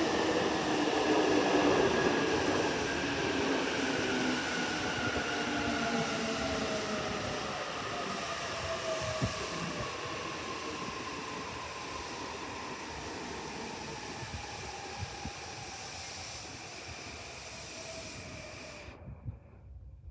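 Electric commuter train braking into the station: its motor whine falls slowly in pitch over the rumble of the wheels and fades as the train slows. The sound cuts off suddenly near the end.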